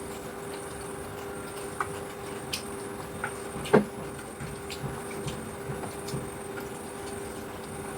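Scattered light clicks and taps of eating, with one louder knock a little under four seconds in, over a steady low hum.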